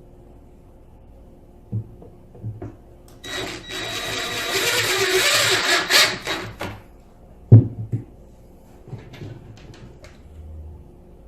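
Power drill driving a screw into the table's wooden end panel, whirring for about three and a half seconds and building as the screw goes in. A sharp knock follows, with lighter knocks and clicks of parts being handled before and after.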